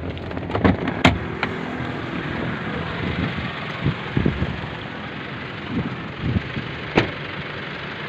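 A car door being opened and someone climbing out of the car: several sharp clicks and knocks about a second in, softer handling knocks, and a loud click near the end. Steady wind and traffic noise runs underneath.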